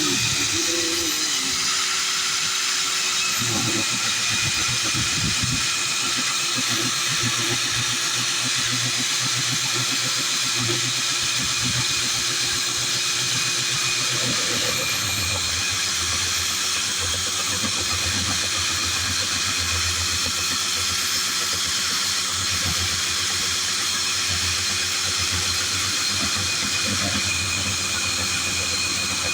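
Electric core drill running steadily with a high whine, boring a hole through a roof slab; a low grinding rumble of the bit cutting joins about three seconds in.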